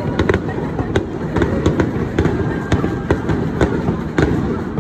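Aerial firework shells bursting in a dense barrage: a continuous low rumble of booms with sharp cracks at irregular intervals, about three a second.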